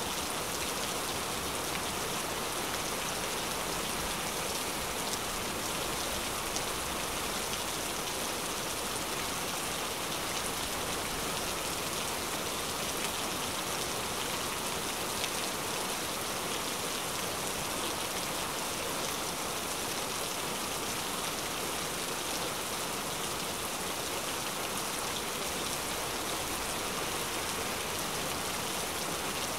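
Steady rain falling: an even, unbroken hiss with many fine drop ticks, the same throughout.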